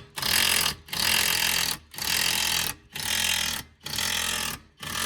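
A power tool, likely a powered wrench, run in about six trigger pulls of just under a second each with short pauses between them, working a bolt on the car's rear suspension.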